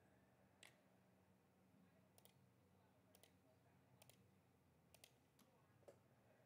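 Faint computer mouse clicks, single and in quick pairs, spread irregularly over near-silent room tone.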